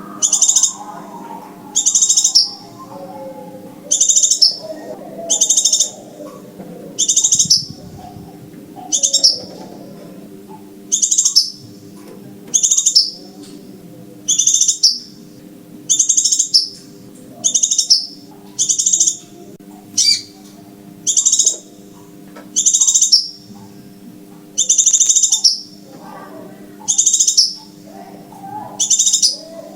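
Recorded scarlet minivet (sepah raja) call played as a trapping lure: a short, high-pitched call note repeated at an even pace of about one a second. A faint low hum lies beneath.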